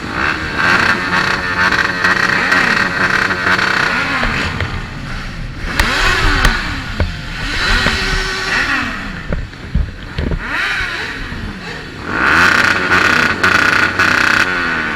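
A 125cc motorcycle engine being revved: held at high revs for a few seconds, then blipped up and down several times, then held high again near the end.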